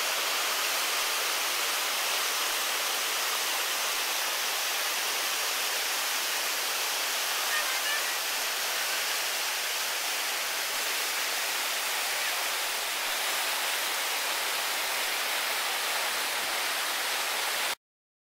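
Whitewater of a river rapid rushing steadily with an even, hissing roar, cutting off abruptly shortly before the end.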